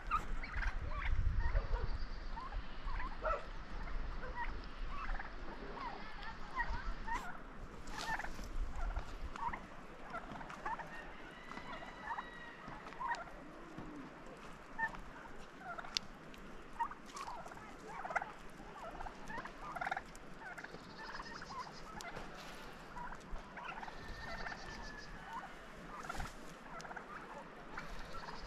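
A flock of turkeys giving many short, overlapping calls as they forage. A low rumble runs through the first several seconds.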